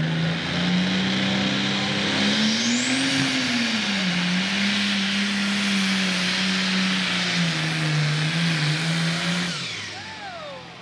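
Pro Stock pulling tractor's turbocharged diesel engine running flat out under load as it drags the weight-transfer sled. Its pitch swells and dips once about three seconds in. Near the end the throttle comes off and the engine note drops away.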